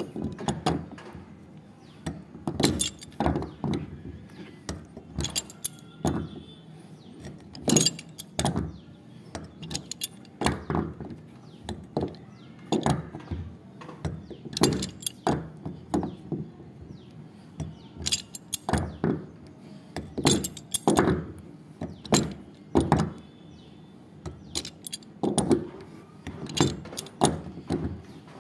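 Steel pipe wrench clinking and clanking in repeated short clusters, one every second or two, as it is turned and reset again and again on a plastic threaded nipple, screwing a new nipple into a plastic water tank.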